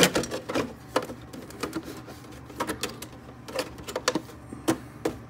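A series of irregular plastic clicks and knocks as the body shell of a Traxxas TRX-4 Sport RC crawler is pressed and wiggled down onto its chassis and front bumper.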